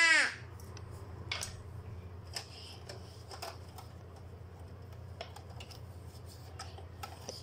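Scattered light clicks and knocks of objects being handled on a desk, over a steady low hum.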